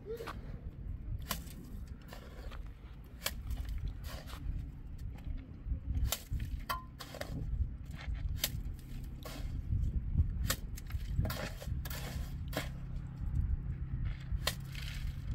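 Irregular clicks and knocks, a few to several a second at times, over a steady low rumble.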